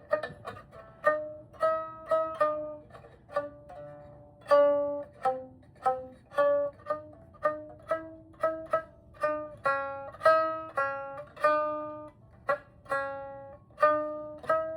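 Biwa, a Japanese lute, played as a slow melody of single plucked notes, about two a second, each ringing briefly and dying away.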